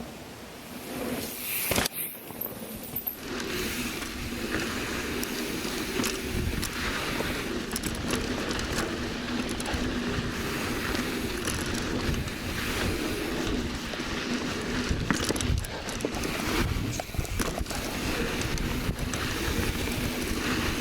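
Mountain bike riding down a dirt trail: steady tyre and wind noise with frequent small rattles and knocks from the bike over bumps, starting up from a quiet moment about two seconds in.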